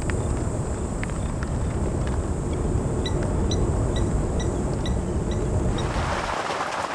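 Low, steady wind rumble with short high peeps repeated a few times a second in the middle. About six seconds in it gives way to the steady hiss of heavy rain.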